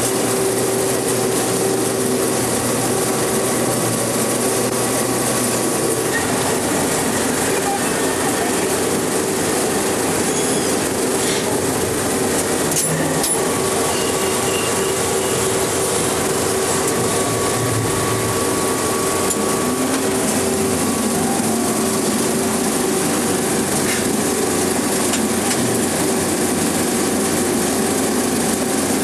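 Film projectors running: a steady mechanical clatter and hum, with a few sharp clicks near the middle.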